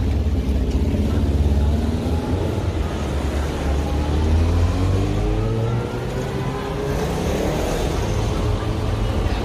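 A vehicle engine accelerating: a deep rumble with a whine that rises in pitch over a few seconds.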